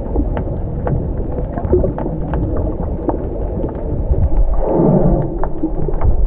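Underwater noise picked up by a camera held below the surface: a steady low rumbling water sound with scattered faint clicks, and a short louder rush of sound about four and a half seconds in.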